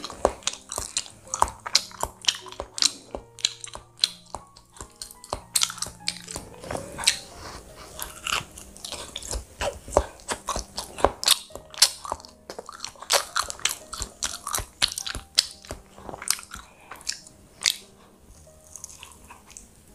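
Close-miked chewing and biting of a baked banana-and-cheese bread roll, with many quick, sharp mouth clicks throughout and another bite near the end. Soft background music with steady held tones plays underneath.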